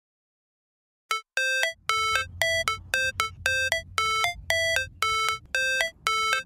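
Background music: after about a second of silence, an electronic melody of short chime-like synth notes starts, about three notes a second in a steady rhythm.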